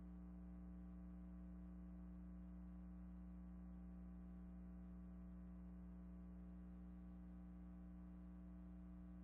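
Near silence with only a faint, steady electrical mains hum.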